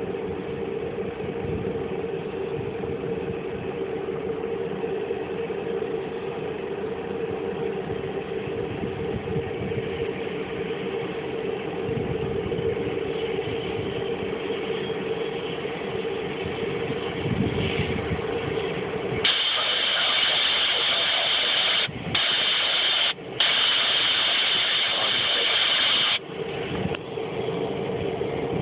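Pratt & Whitney PT6A turboprop of a T-34C Turbo Mentor running at ground idle, a steady hum with a drone. About two-thirds of the way in, a loud high-pitched hiss takes over for about seven seconds and is cut off briefly twice, then the engine hum returns.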